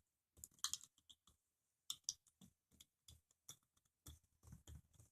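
Faint, irregular clicks and scrapes of an Ozark Trail multitool's pliers gripping and turning a small object, a dozen or so short ticks spread unevenly.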